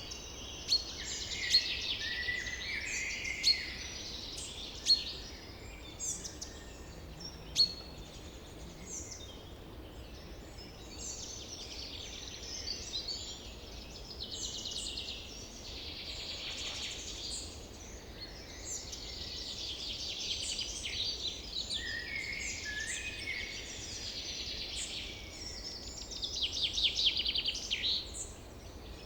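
Forest ambience of many birds calling and chirping over one another, with several sharp, loud chirps in the first eight seconds and a fast trill near the end, over a faint low rumble.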